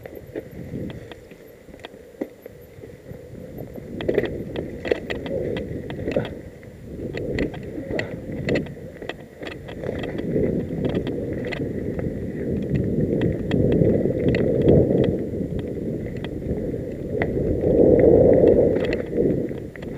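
Mountain bike riding down a rocky singletrack: the tyres rumble over dry fallen leaves and stones, with frequent sharp rattling clicks from the bike over the bumps. The ride gets louder near the end.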